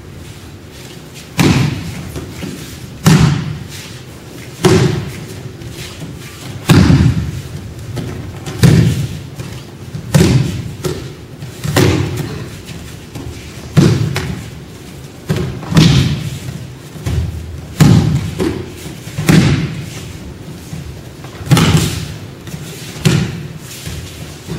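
Children taking aikido breakfalls: bodies thrown onto foam tatami mats, each landing a heavy thud with a slap, about one every one and a half to two seconds, starting about a second and a half in, with a short echo after each.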